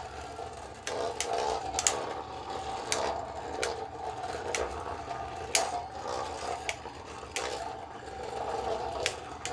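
Beyblade spinning tops whirring in a plastic stadium, a steady hum broken by sharp clacks as they strike each other and the stadium wall every second or so.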